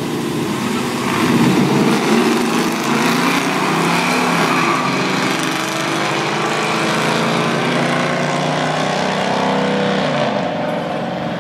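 An old Pontiac and a pickup truck launching side by side and accelerating hard down a drag strip, their engines at full throttle. The engines are loudest about a second into the run, then carry on with pitch steps as they shift and grow a little quieter near the end.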